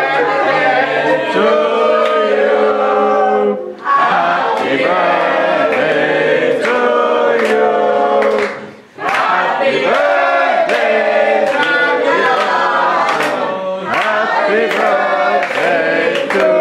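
A group of people singing a birthday song together, many voices at once, with short breaks between lines about 4 and 9 seconds in.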